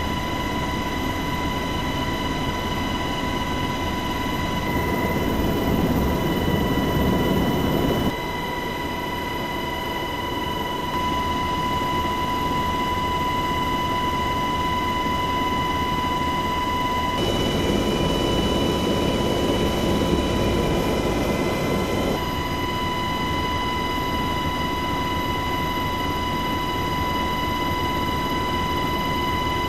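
Cabin noise inside a Black Hawk helicopter in flight: a steady, loud rush of rotor and engine noise with a high, constant whine. The sound shifts abruptly in level and tone several times.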